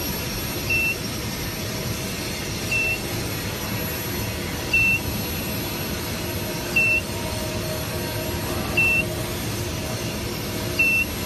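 Short, high electronic beep repeating about every two seconds, six times, from the buzzer of an induction weld-preheat machine, over a steady machine hum.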